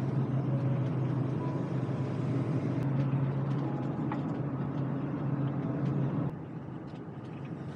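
Camper van's engine and road noise heard inside the cab while driving: a steady low drone that drops off abruptly about six seconds in.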